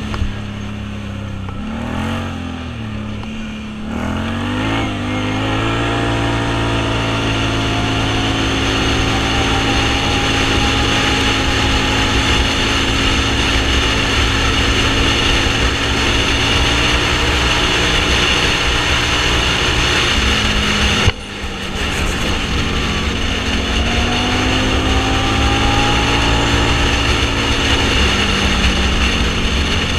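Off-road vehicle's engine running while driving, its pitch climbing a few seconds in and then holding steady. About two-thirds of the way through the sound breaks off sharply for a moment, then the engine picks up and rises again.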